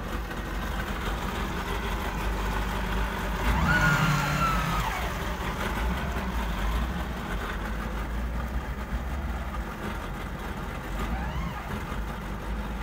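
Motorboat engine running steadily at low speed, a constant low hum. About four seconds in, a brief louder sound with a high, slightly falling tone rises above it.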